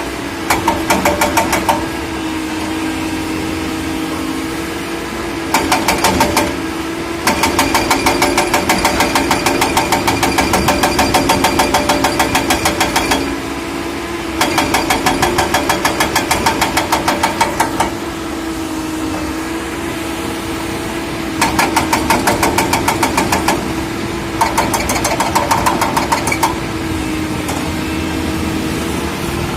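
Excavator's diesel engine running steadily. Several bouts of rapid, even clattering pulses come and go over it, each lasting one to six seconds.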